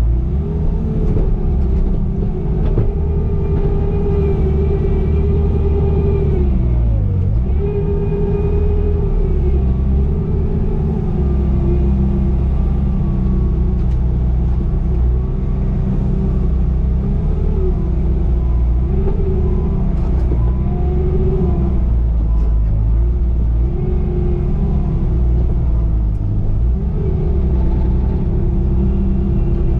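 Bobcat T595 compact track loader's diesel engine running at working speed with a heavy low rumble. Its pitch dips sharply about a quarter of the way in, then recovers, and sags briefly several more times later on.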